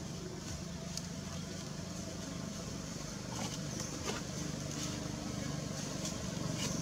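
Steady low motor hum, like an engine running at a distance, with a few faint ticks.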